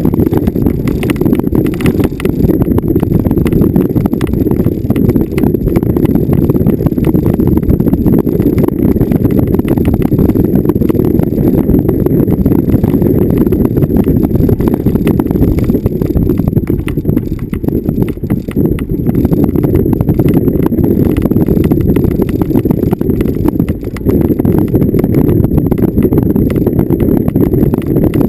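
Vehicle driving over bumpy off-road ground: a continuous low rumble packed with rapid jolts and rattles.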